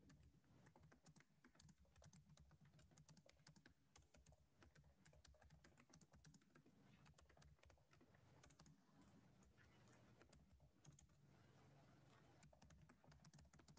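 Faint, quick typing on a computer keyboard: a steady run of small key clicks.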